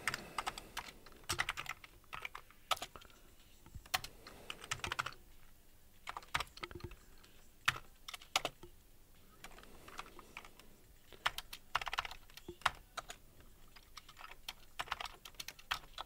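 Typing on a computer keyboard: short, irregular runs of keystrokes with pauses between them.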